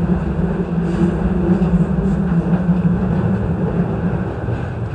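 JR E233 series 0 electric commuter train running along the track, heard from the driver's cab: a continuous rumble of wheels and running gear with a steady low hum that fades away about four seconds in.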